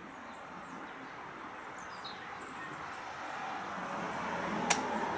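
Chassepot M1866 needle rifle's striker snapping forward with one sharp click about four and a half seconds in, and no shot following: the paper cartridge misfires. Faint bird chirps about two seconds in over steady outdoor background noise.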